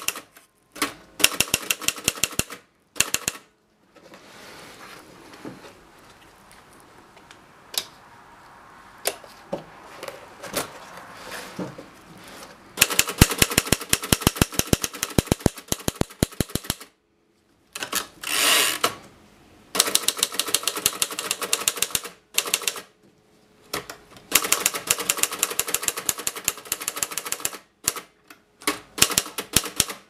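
Torpedo 15 portable typewriter being typed on: fast runs of sharp key strikes in bursts, broken by pauses. A quieter stretch of scattered clicks comes a few seconds in, and about two-thirds of the way through there is a longer rushing sound lasting about a second.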